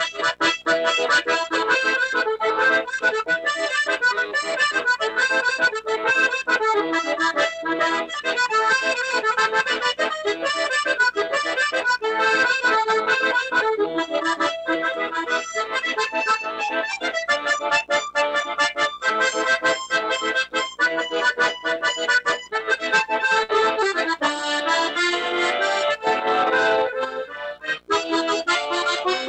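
Accordion playing a tune in quick runs of notes, with a brief drop in level near the end.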